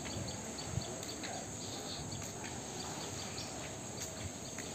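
Outdoor ambience: insects chirping in short, high, repeated pips over a steady background hiss.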